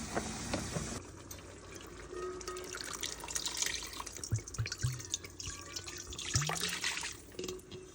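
Water running and splashing, with drips and a few light clinks.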